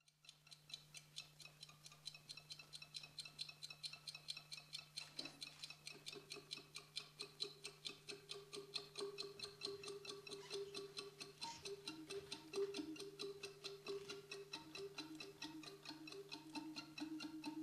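Steady, even clock-like ticking, several ticks a second, over a faint steady hum. About six seconds in, sustained low held notes of live music join it, shifting lower and growing louder near the end.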